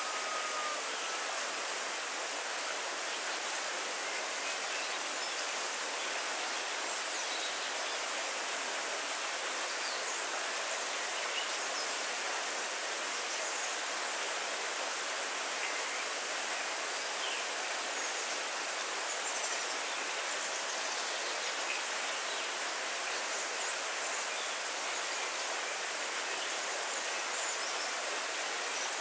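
Heavy rain falling on trees and leafy undergrowth: a steady, even hiss with no thunder.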